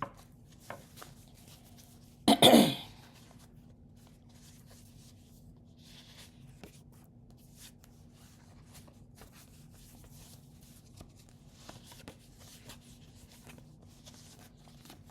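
A person coughs once, a short loud burst about two seconds in. Faint rustles and light taps follow.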